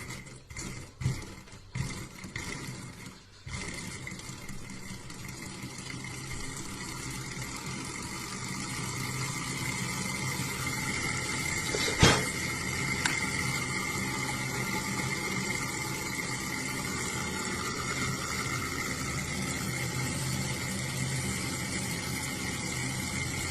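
Small model steam engine: a few knocks, then from about three and a half seconds a steady hissing run that slowly grows louder, with one sharp click about halfway through.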